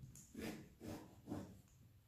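Kitchen knife sawing through a whole eggplant on a plastic cutting board: three soft strokes about half a second apart as the blade works down through the flesh to halve it.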